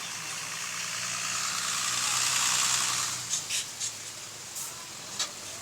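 A road vehicle passing close by. Its engine hum and tyre noise swell to a peak about two and a half seconds in, then fade, followed by a few short sharp clicks.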